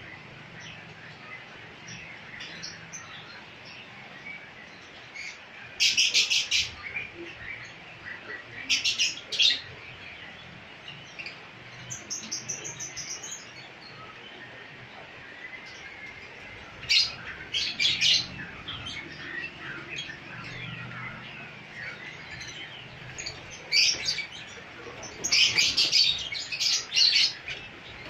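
A songbird singing in short bursts of rapid high chirps, separated by pauses of a few seconds, with the busiest run of song near the end.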